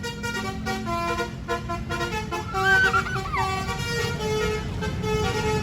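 Bus Basuri telolet horn playing a tune of short stepped notes over a running diesel bus engine. About halfway through a wavering tone slides up and then down, the loudest moment.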